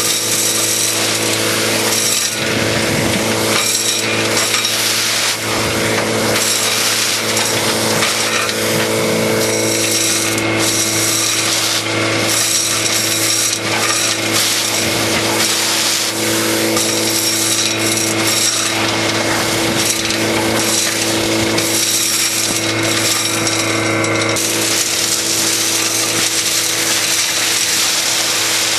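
DuroVac PL400 40 hp portable industrial vacuum running at a steady pitch with a constant hum and a hissing rush of air, with rapid clicking and rattling as gravel and sand are drawn through the hose. A little after twenty seconds the rattling stops and only the even rush of air and the hum remain.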